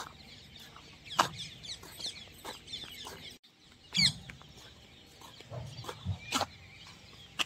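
Birds calling: a dense chatter of short chirps, with louder, sharper calls about a second in, around four seconds and just past six seconds.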